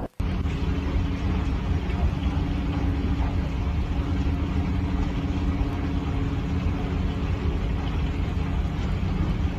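Dump truck engine running steadily with the tipper bed raised, a constant low drone.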